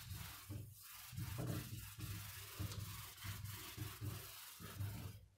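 Felt whiteboard duster rubbing back and forth across a whiteboard, wiping off marker writing in a quick run of strokes.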